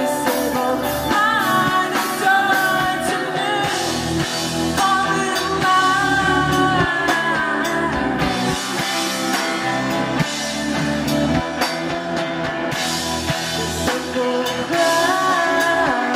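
Live rock band playing: a woman singing lead over electric guitars and a drum kit, with the full room sound of a small club.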